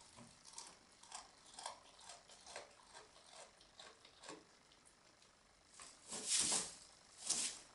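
Goat biting and chewing Christmas-tree branches, about two crunches a second, with two louder rustles of the branches near the end.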